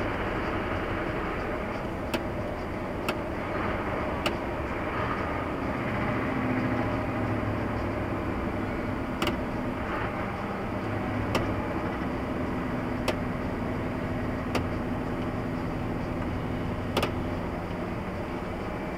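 Car driving noise: a steady rumble of engine and tyres, with short sharp clicks every one to two seconds.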